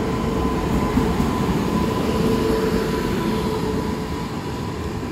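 WAP-7 electric locomotive and its passenger coaches rolling past close by: a dense, steady rumble of wheels on rail with a steady whine over it.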